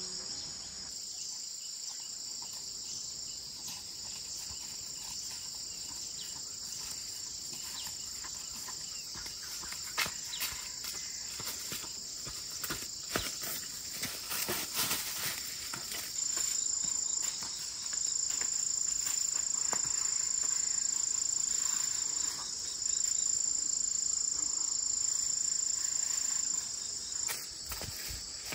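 Insects chirring in a steady, high-pitched chorus, with a louder high whine joining about halfway through and dropping out a second or two before the end. Scattered light knocks and rustles sound over it.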